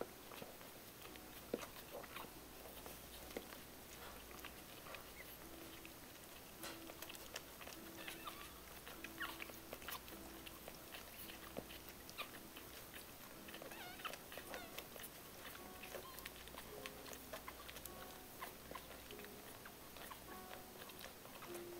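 Two-day-old puppies nursing on their dachshund mother: faint scattered wet clicks and smacks of suckling. From about five seconds in, short soft whines repeat roughly once a second.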